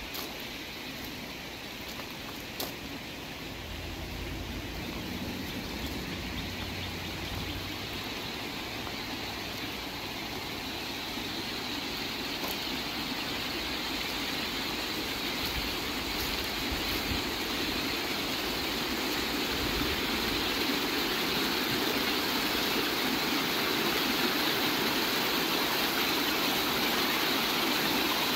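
Rushing water of a shallow, rocky stream running over rapids, a steady noise that grows gradually louder.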